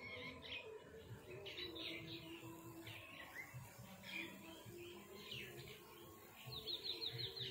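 Birds chirping and calling, faint, with short high warbling phrases coming every second or so over a low, uneven background rumble. Near the end comes a quick run of short, falling high chirps.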